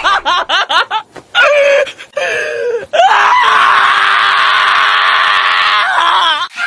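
Shiba Inu screaming while held for a nail trim: a quick string of shrill yelps, two short cries, then one long held scream from about three seconds in that breaks off just before the end.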